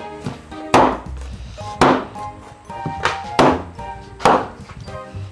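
Cleaver chopping on a wooden cutting board: four heavy strikes about a second apart, over background music.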